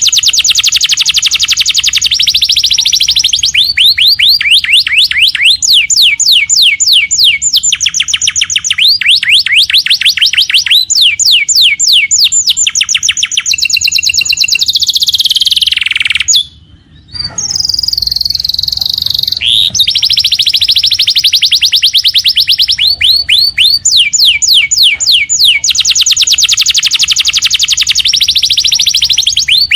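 Domestic canary singing loudly and without pause in long, rapid trills of repeated high notes, one phrase following another, with a brief break about halfway through.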